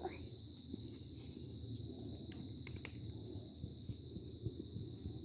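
Insects, likely crickets, trilling steadily and high-pitched over a low background rumble, with a few faint clicks and a short rising squeak just at the start.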